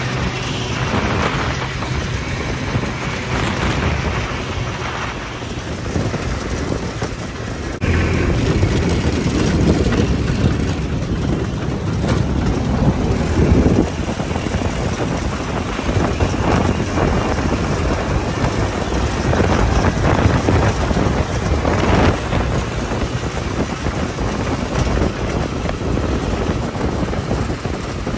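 Off-road buggy driving along a dirt track: engine running under heavy wind buffeting on the microphone and tyre noise on the gravel, getting louder about eight seconds in.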